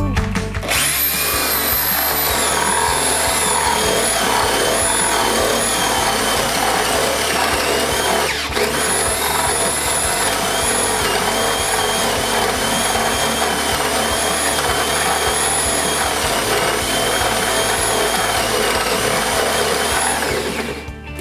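Zubr corded drill-driver's motor running for about twenty seconds, its whine wavering up and down in pitch as the speed changes, with a brief dip about eight and a half seconds in. Background music continues underneath.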